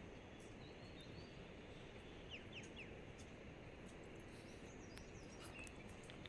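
Faint outdoor ambience: a steady low hiss with a few short, faint bird chirps about two and a half seconds in.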